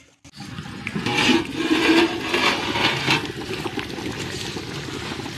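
Water at a rolling boil bubbling in a large aluminium pot of chicken masala, the stage at which it is ready for the soaked rice.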